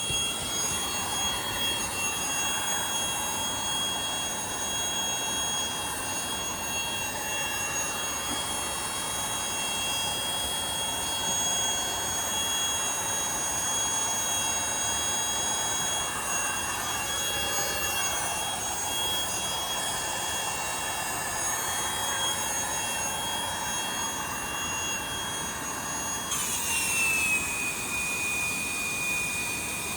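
Portable gas camping stove burner running with a steady rushing hiss. About 26 seconds in, a high tone drops in pitch and then holds steady.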